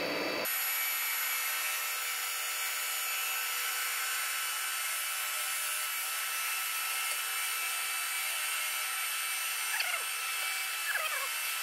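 Milling machine spindle and cutter running steadily as it skims about 0.2 mm off the mating faces of a cylinder head's camshaft bearing caps, so that the cam bore can be line-bored true. Two short falling squeals come near the end.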